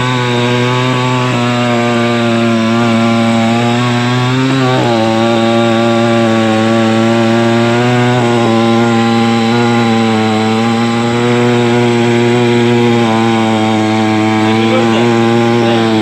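Two-stroke petrol chainsaw (iBELL) running at high revs while cutting through a green tree trunk. Its engine note drops slightly in pitch about five seconds in as it works through the wood.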